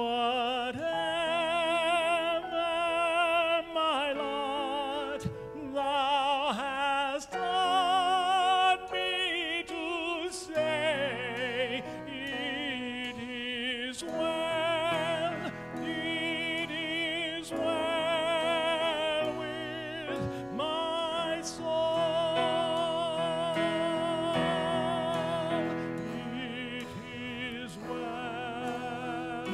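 A solo voice singing long held notes with wide vibrato, in a classical style, over a sustained accompaniment.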